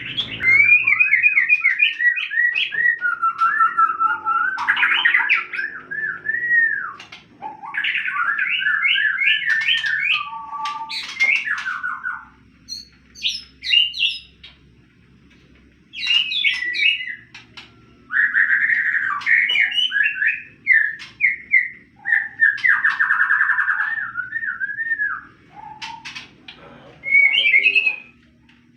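A songbird singing a long, varied song of rapid whistled and chirping phrases that slide up and down in pitch, with a few short pauses between bursts.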